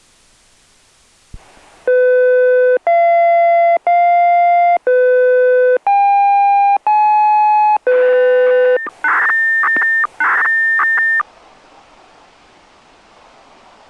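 Analog disaster-prevention radio control tones over radio hiss: seven steady electronic beeps of about a second each at changing pitches, then two shorter higher beeps with bursts of static. The sequence cuts off abruptly after about eleven seconds, leaving faint rustling noise.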